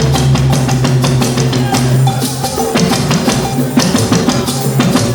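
Band music led by a drum kit and percussion, with many drum hits over held bass and keyboard notes and no singing.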